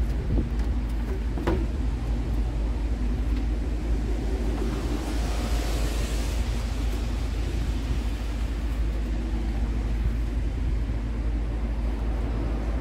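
Steady low rumble of street traffic, with a vehicle passing about halfway through. A short light knock about a second and a half in.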